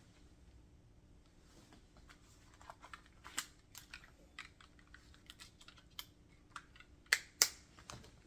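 Hands working a leather belt pouch: light scattered clicks and rubbing, then two sharp clicks in quick succession near the end, as the pouch's two snap fasteners are pressed shut.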